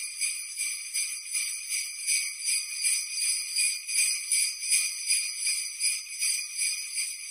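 Sleigh bells jingling in a steady rhythm, about two shakes a second, bright and high with no low sounds underneath.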